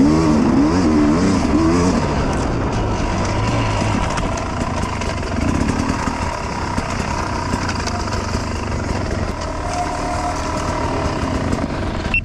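Dirt bike engine revving up and down in quick blips for about the first two seconds, then running more steadily as the bike is ridden over rough off-road terrain.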